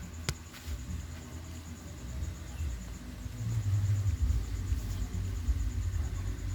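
Steady high-pitched insect trill over a low rumble that grows louder about three seconds in, with one sharp click just after the start.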